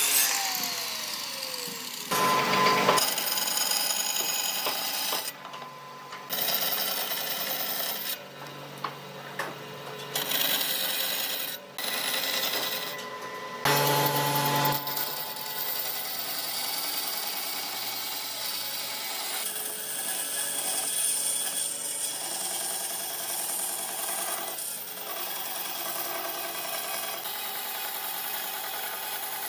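Power saws cutting wood in a string of short, abruptly cut clips: a circular chop saw's blade winding down at the start, then from about halfway a bandsaw running steadily as a wooden board is pushed through it.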